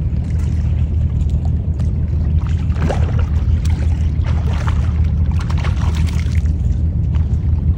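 Hooked redfish (red drum) splashing and thrashing at the water's surface as it is fought on a rod, a few sharp splashes over a steady low rumble.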